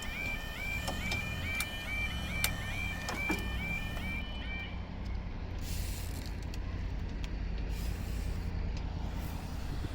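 Level crossing yodel alarm sounding in quick repeating warbles, stopping about halfway through as the barriers come down, over a steady low train rumble.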